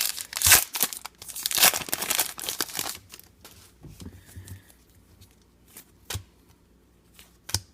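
Foil wrapper of a trading card pack being torn open and crinkled for about three seconds. After that come quieter, scattered small clicks and rustles as the cards are handled.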